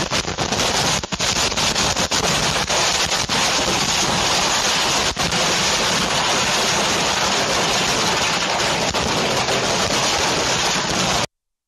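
Fireworks going off all at once in a dense, continuous barrage that sounds like a steady rush of noise, with a few sharp bangs in the first second. It cuts off suddenly near the end.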